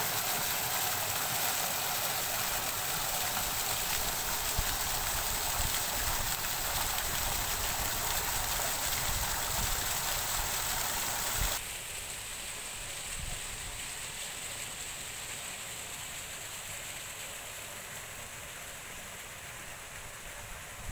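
An ornamental fountain splashes steadily, its water pouring and jetting into a basin. The sound cuts off suddenly about halfway through, leaving a quieter outdoor hush with low bumps of wind on the microphone.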